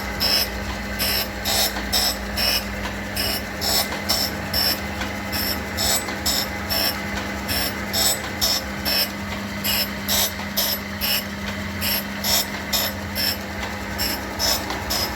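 3D641E universal tool-and-cutter grinder running on its hydraulic drive: a steady hum under a quick, repeated clicking, about two to three clicks a second.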